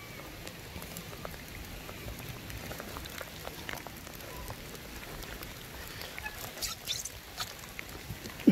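Steady rain falling, with scattered sharp taps of drops throughout and one sharp knock right at the end.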